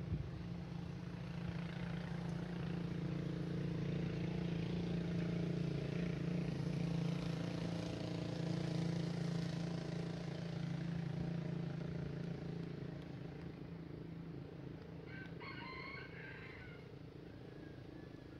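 A motor vehicle's engine drones steadily, swelling over the first few seconds and slowly fading away. About fifteen seconds in, a rooster crows once.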